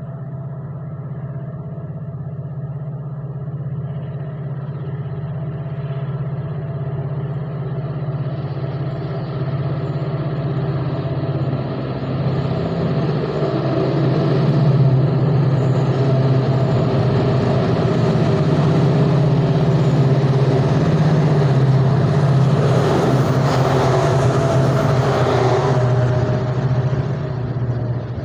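Twin WDG4D diesel-electric locomotives hauling a freight train, their engines droning steadily and growing louder as they approach. The sound peaks in a broad rush as the locomotives pass close, about three-quarters of the way in, before the freight wagons start rolling past.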